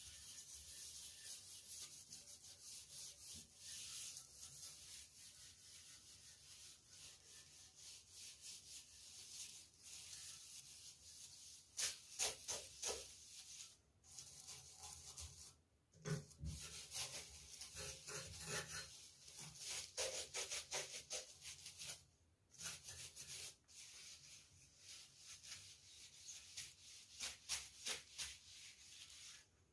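Rubbing strokes, like a surface being scrubbed or wiped, repeated quickly and stopping briefly a few times.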